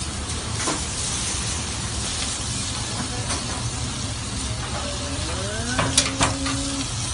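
Beef burger patties sizzling on a charcoal grill, a steady hiss. A few sharp clicks come near the end, with a short tone that rises and then holds.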